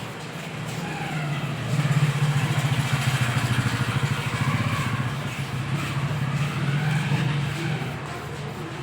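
A motor vehicle engine running with a fast, even pulse, growing louder about two seconds in and easing off near the end.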